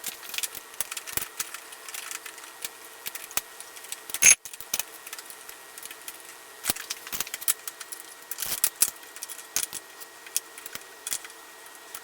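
Irregular metallic clicks and clinks of a wrench and pedal being worked onto an e-bike's crank arm, with one sharp knock about four seconds in.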